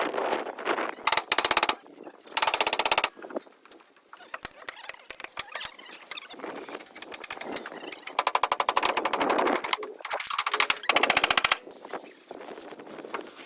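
A power tool rattling with very fast, even clicks in several short bursts, the longest near the middle lasting about a second and a half, with quieter scattered clicks and knocks between the bursts.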